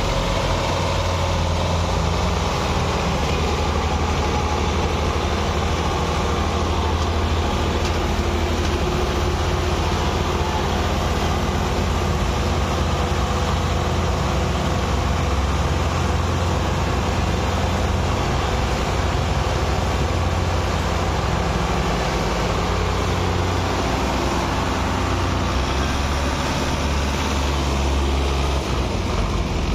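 Old Russian tractor's diesel engine running steadily and hard, pulling a trailer heavily loaded with sugar cane through soft soil.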